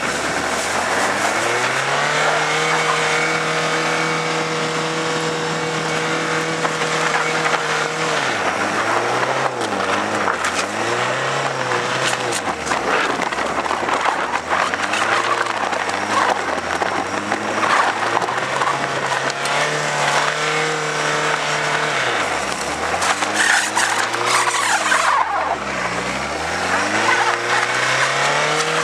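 Ford Escort diesel van engine held at high revs for several seconds, then revved up and down over and over as the van spins and slides on snow. A steady rush of wind and tyre noise runs under it.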